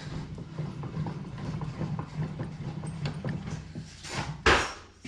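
Bench vise screw mechanism being worked by hand, with metal parts clicking and rattling, then one loud metal clank about four and a half seconds in.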